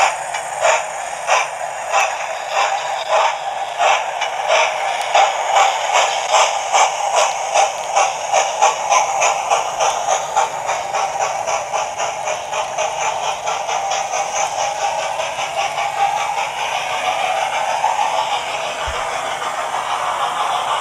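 Steam locomotive chuffing from the Hornby R3244TTS 71000 Duke of Gloucester's TTS sound decoder, played through the model's small onboard speaker as it pulls away. The chuffs quicken steadily through the first half, then run together into a continuous rush as the engine gathers speed.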